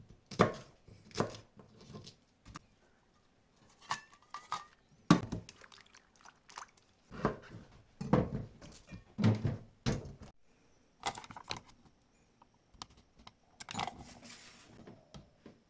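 Irregular knocks and clatter of kitchen utensils and dishes, some sharp and loud, with short pauses between them.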